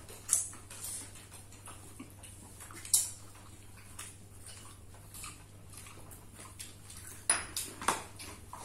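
Scattered clinks and knocks of plates and cutlery during a meal, a few isolated taps and then a louder cluster near the end, over a steady low hum.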